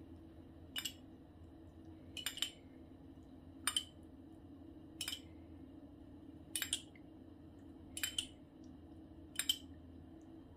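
A metal spoon clinking against a small ceramic bowl of marinade, seven light clinks about a second and a half apart as it is dipped and scooped. A low steady hum runs underneath.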